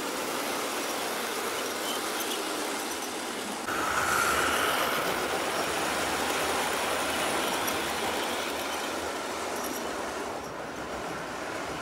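Hornby LMS Patriot Class OO-gauge model steam locomotive running on the track with a five-coach train: a steady motor and wheel running noise, louder from about four seconds in as the train passes close.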